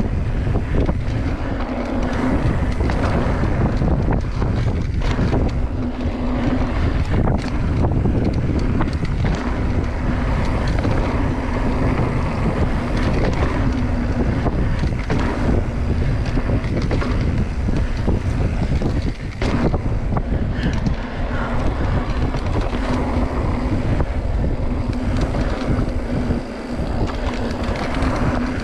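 Wind buffeting an action camera's microphone as a mountain bike rolls fast over a dirt trail, with tyre noise and small rattles and knocks from the bike; a steady hum comes and goes several times.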